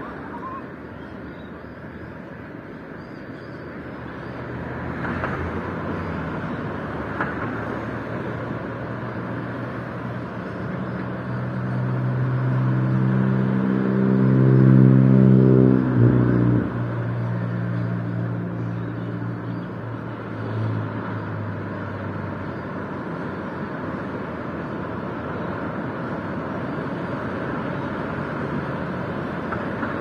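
A motor vehicle's engine approaching and passing close: a steady engine note swells to its loudest about halfway through, drops slightly in pitch as it goes by, then fades. Under it is a steady outdoor rush of background noise.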